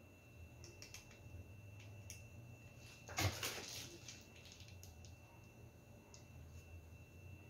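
Quiet handling of plastic piping bags of whipped cream over a steady low hum, with a few faint clicks and one brief louder rustle about three seconds in as the piping bags are switched.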